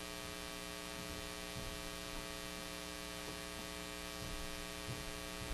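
Steady electrical mains hum with many evenly spaced overtones, picked up by the audio system in a pause with no speech.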